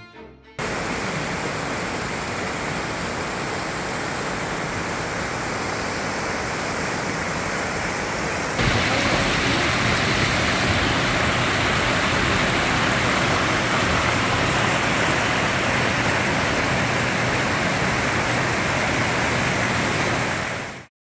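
Mountain stream rushing over boulders and rock slabs in small cascades, a steady rush of water. It jumps louder about eight seconds in and cuts off suddenly near the end.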